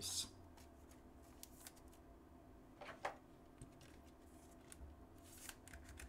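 Faint scattered clicks and rubbing of a trading card being slid into a clear plastic holder, the loudest click about three seconds in.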